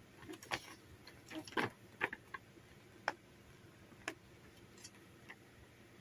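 Folded paper instruction leaflet being handled: irregular crisp crackles and snaps, several close together in the first two and a half seconds, then a few single ones.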